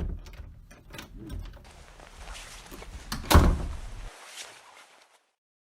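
Edited sound effect: a few clicks and knocks, then a swelling rush that ends in one heavy thud about three and a half seconds in and dies away.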